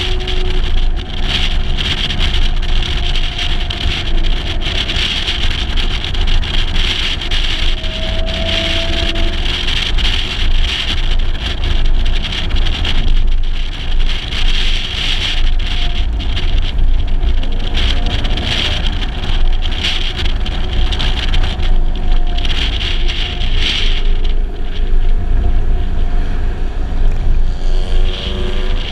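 Wind buffeting a side-mounted camera's microphone on a moving 1956 Mercedes-Benz 300 SL, with the car's straight-six engine running underneath, its note shifting with speed and rising near the end.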